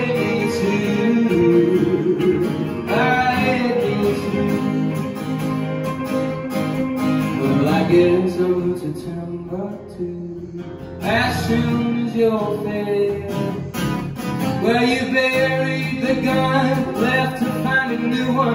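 Live acoustic guitar strumming with an electric guitar playing along, an instrumental stretch of a song. The music briefly drops quieter about ten seconds in before picking up again.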